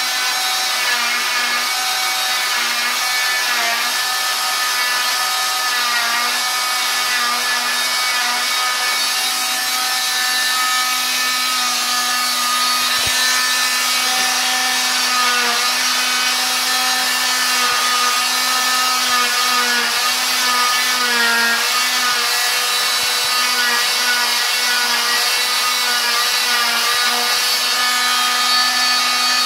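Electric oscillating cast saw cutting through a fiberglass cast: a steady motor whine with a high hiss, its pitch dipping briefly again and again as the blade bites into the cast.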